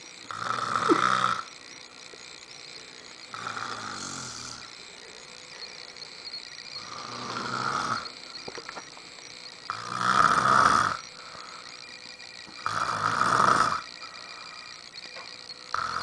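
A man snoring in his sleep, one snore about every three seconds, each about a second long. The second and third are softer than the rest.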